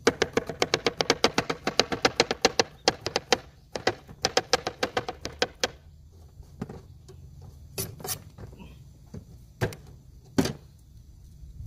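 Kitchen knife chopping vegetables on a plastic cutting board: a quick, even run of chops, about eight a second, then a second run after a short break, then a few single chops spaced out.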